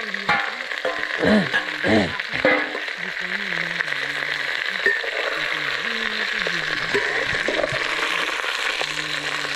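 Onion, ginger and garlic frying in a pot with a steady sizzle, stirred now and then with small scraping knocks.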